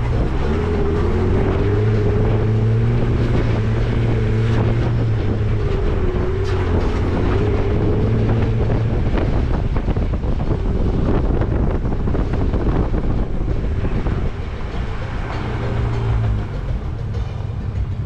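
A 4x4's engine running steadily as it drives a dirt track, with tyre noise and small knocks from the rough ground and wind buffeting the outside-mounted microphone. The engine hum eases off in the last few seconds.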